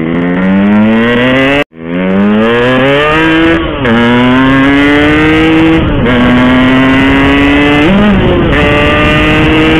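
Yamaha RX-King two-stroke single-cylinder motorcycle engine under hard acceleration in a drag run, its pitch climbing in each gear and falling back at each upshift, about four times. The sound cuts out for an instant early on.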